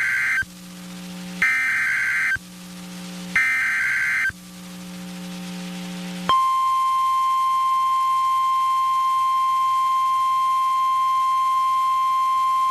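NOAA Weather Radio Emergency Alert System (SAME) header: shrill bursts of digital data tones, each about a second long and about a second apart, with the end of one burst and then two more. About six seconds in, the steady 1050 Hz weather radio warning alarm tone starts and holds. Together these signal that a new warning message follows.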